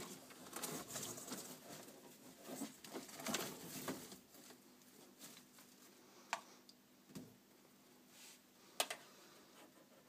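Faint scratchy rustling of metal feeding tweezers and a hand moving through bark-chip reptile substrate for the first four seconds, then a few sharp clicks, about six and nine seconds in.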